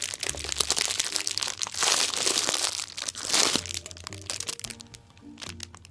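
Clear plastic packaging crinkling and crackling as a foam squishy toy is squeezed inside it, for about three and a half seconds before it dies away. Light background music plays underneath.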